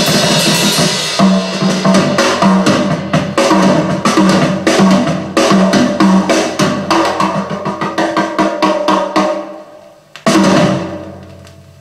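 Drum kit test recording from an audio check record, played back through hi-fi speakers. A cymbal wash opens it, then a run of snare and tom strokes, and one loud hit about ten seconds in rings out and fades.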